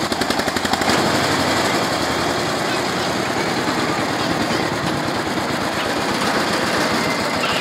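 Paddy threshing machine running, driven by its single-cylinder diesel engine: a loud, steady mechanical clatter of engine and thresher together, pulsing briefly in the first second.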